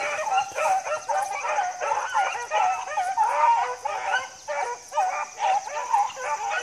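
A pack of beagles baying, many dogs' calls overlapping several times a second without a break. This is hounds giving tongue as they work a scent trail.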